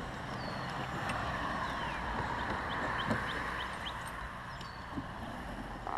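Birds chirping, with a quick run of about five short rising notes in the middle, over a steady rushing noise.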